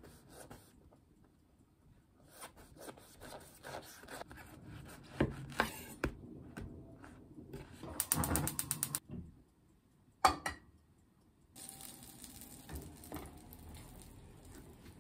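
Kitchen knife cutting through a crusty salt-butter French roll on a wooden board, with small crackles and knocks. About eight seconds in, a gas hob's igniter clicks rapidly for about a second, then a sharp click follows and the lit burner gives a soft, steady hiss.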